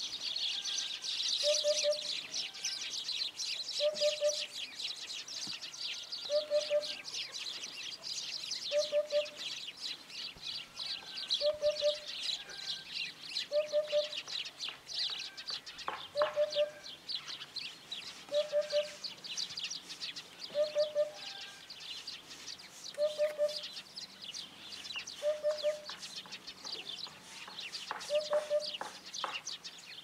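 Eurasian hoopoe singing its three-note 'oop-oop-oop' song, the phrase repeated about every two and a half seconds, over a dense high chirping in the background.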